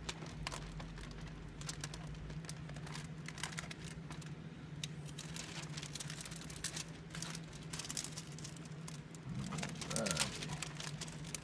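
Sheet of wet window tint film crinkling and crackling with many scattered small ticks as it is handled and rolled against the inside of a windshield, over a steady low hum.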